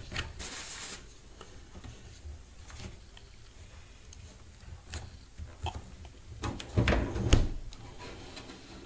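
Light rubbing and small clicks as a thin wooden strip is handled against a refrigerator door's bottom edge, then a few heavier knocks about seven seconds in as the door is pushed closed onto the strip wedged in the gap.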